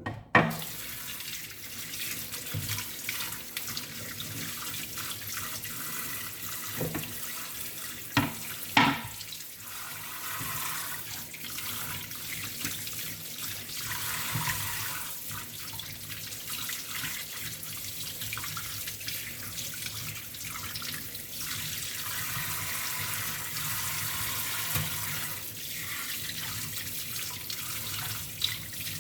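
Kitchen faucet running steadily into a sink, with a few sharp clunks near the start and twice about eight to nine seconds in.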